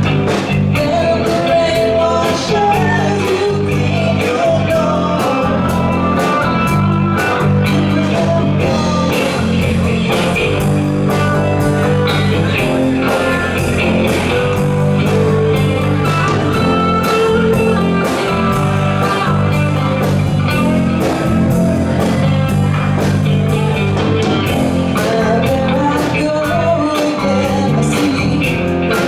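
Live rock band playing: electric guitars over bass guitar and a drum kit, with singing.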